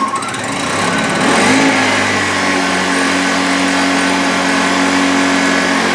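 Honda EU1000i generator's small four-stroke engine just started on choke in standard (non-eco) mode. It runs up over the first second or so, then holds a steady, fairly high speed.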